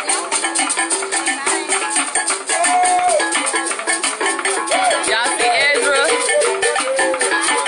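Live Congolese percussion band playing: fast shaker rattling and drum beats over a short low riff that repeats over and over. From about two and a half seconds in, a voice comes in with long sliding, wavering notes.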